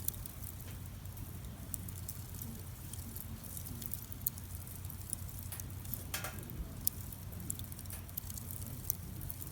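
Wood campfire crackling: irregular sharp pops and snaps over a steady low rush of burning, with one fuller crack about six seconds in.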